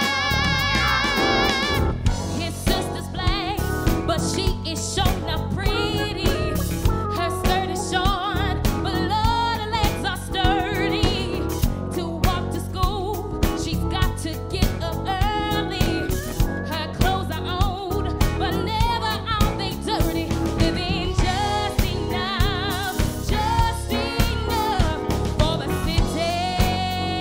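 Female soul vocalist singing a Motown number live with a backing band. Her voice carries a wide vibrato over a drum kit keeping a steady beat, with bass and keyboards underneath.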